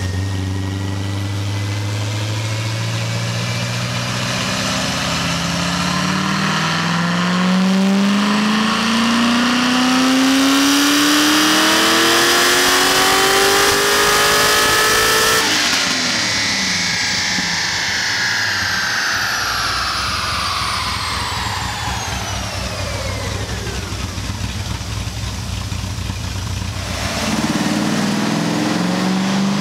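C6 Corvette Z06's 7.0-litre LS7 V8, fitted with aftermarket heads and cam, making a full-throttle chassis-dyno pull. It idles, then revs climb steadily for about thirteen seconds. About fifteen seconds in the throttle closes suddenly, and the engine coasts down in a long falling pitch, back to idle near the end.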